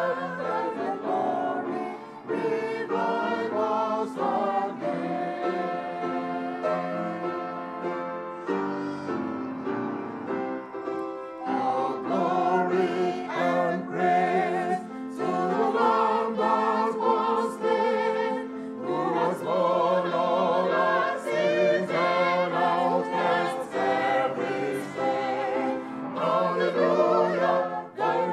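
A small mixed choir of women's and men's voices singing a hymn together, with long held notes.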